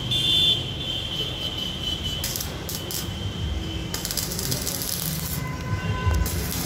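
Stick welding with an inverter arc welder on a shutter spring ring: the electrode arc crackling and hissing in short spells from about two seconds in, longest from about four seconds. A steady high whine sounds in the first seconds.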